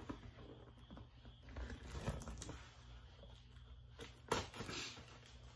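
Cardboard shipping box being handled and opened: faint rustling and scraping, with a sharp knock about four seconds in.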